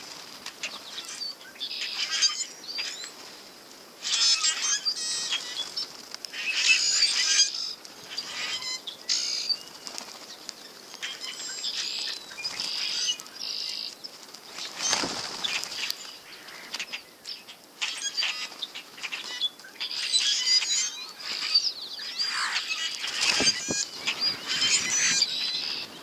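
A flock of European starlings with wings flapping as birds come to and leave the hand. Bursts of squeaky, clicking, whistling chatter come and go throughout.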